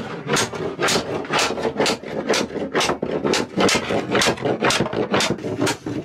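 Rough rhythmic scraping, about two strokes a second, kept up at an even pace.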